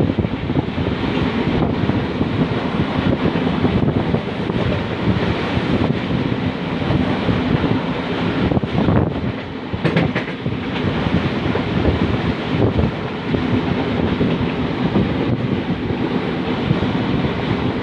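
A steady, loud rushing rumble with a few brief knocks about nine to ten seconds in.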